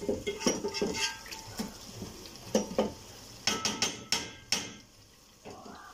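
Wooden spoon stirring thick chicken masala in an aluminium pot, scraping and knocking against the pot's sides, with a quick run of sharper knocks about three and a half to four and a half seconds in.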